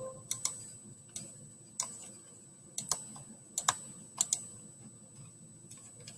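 Scattered clicks of a computer mouse and keyboard, several coming in quick pairs like double-clicks, over a faint steady high-pitched whine.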